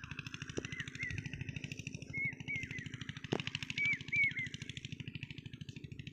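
An engine running nearby with a steady beat of about seven thuds a second, with a few short bird chirps over it. A sharp metallic tap comes about halfway through.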